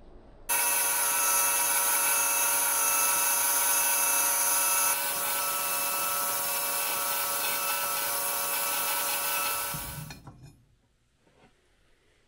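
AmeriBrade belt grinder running with a steady, many-toned motor whine, cutting in abruptly and stopping about ten seconds later.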